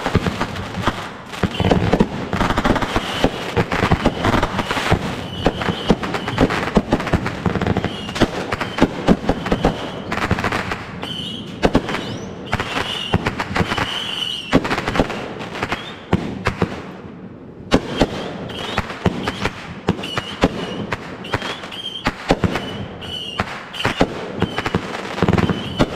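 Consumer fireworks going off in a dense, rapid run of bangs and crackles, the non-stop barrage of a fireworks show's grand finale, with a brief lull about two-thirds of the way through.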